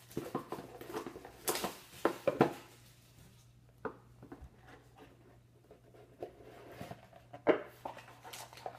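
A cardboard box of Panini Dominion hockey cards being handled on a hard tabletop: scattered taps, scrapes and light knocks as it is turned over and set down. These are busiest in the first couple of seconds, then a few isolated knocks follow, the sharpest near the end.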